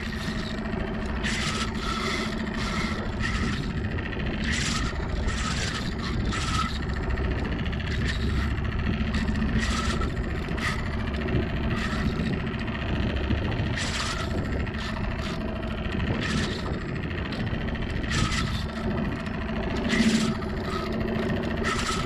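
Spinning reel being cranked in short rasping bursts every few seconds while a hooked fish is fought on a bent rod, over a steady low hum.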